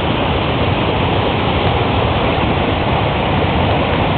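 A large waterfall cascading down into a canyon, making a loud, steady rushing noise.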